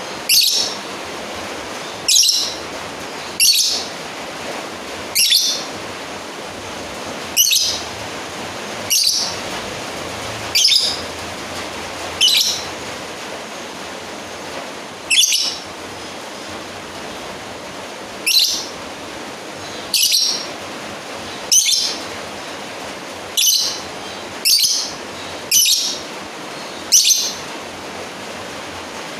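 Lovebird giving short, high-pitched calls, one every second or two with a few longer pauses, over a steady hiss. These are the calls a lovebird makes to challenge a rival.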